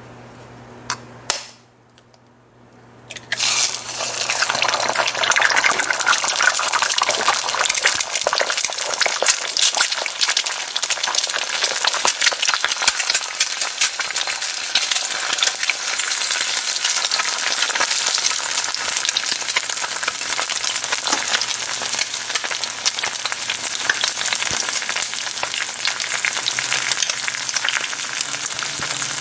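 An egg frying in hot oil in a pan. After a couple of faint clicks and a short lull, a loud sizzle starts suddenly about three seconds in and keeps going steadily, thick with crackling.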